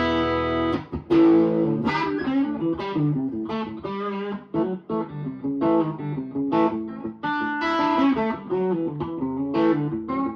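PRS electric guitar with P90-style pickups played through an amp: a phrase of picked single notes and short chords, with brief breaks between licks.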